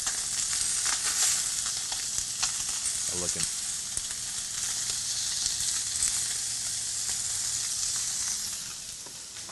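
Salmon skewers searing on a hot ridged grill pan: a steady sizzle with small crackles, easing off slightly near the end.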